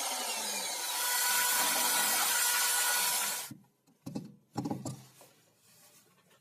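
Jigsaw cutting through wood, a steady harsh sawing that stops abruptly about three and a half seconds in. A few brief knocks follow.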